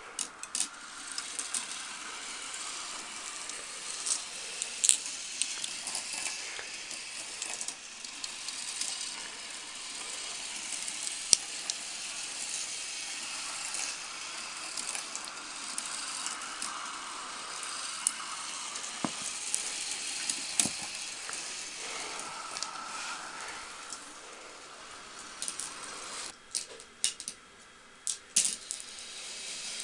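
Marbles rolling along plastic roller-coaster-style marble-run track, a steady rattling hiss with scattered sharp clicks. Near the end the rolling eases off and a few separate sharp clicks and knocks are heard.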